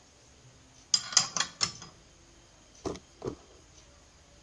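Steel hand tools clinking and clattering against each other and the scooter's CVT pulley: a quick run of sharp clinks about a second in, then two duller knocks near the end.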